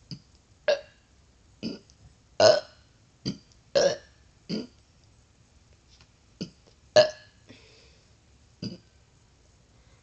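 A girl's forced, fake burps, one after another: about nine short burps at irregular gaps, the loudest about two and a half seconds in and at seven seconds in, ending a little before nine seconds in.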